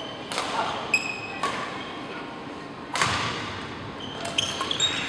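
Badminton rally: a few sharp racket strikes on the shuttlecock, echoing in a large hall, with short high squeaks of court shoes on the wooden floor between the hits.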